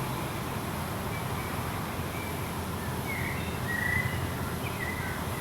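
Small birds chirping a few short times over a steady low rumble of outdoor background noise.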